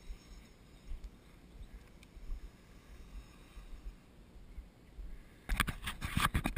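Faint, gusty wind rumble on the microphone with a few small ticks, then from about five and a half seconds in, loud rustling, scraping and knocking as the camera is picked up and handled.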